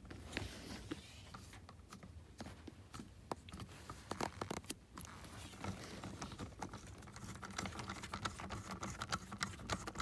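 Hand ratchet with a socket clicking in short, irregular runs of quiet clicks, growing busier toward the end, as the bolts of a seat latch bracket are tightened down.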